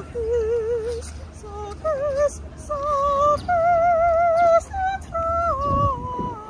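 A girl singing solo with strong, even vibrato, holding long notes that climb step by step and then fall back down near the end. A low, steady rumble sits underneath.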